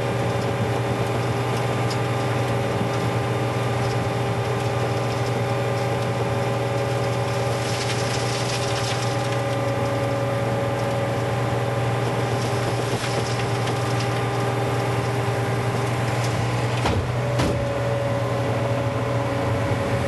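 Skid steer loader's engine running steadily while its hydraulic Sweepster hopper broom spins, sweeping gravel into the bucket. The engine note dips briefly about three-quarters of the way in.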